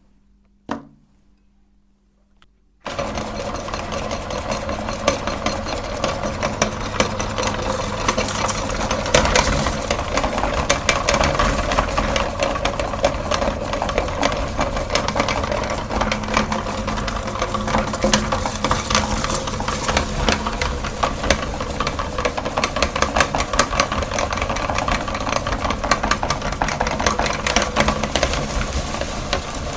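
A single click, then about three seconds in an electric meat grinder's motor starts abruptly and runs steadily, with a dense crackle as it grinds mini ice creams.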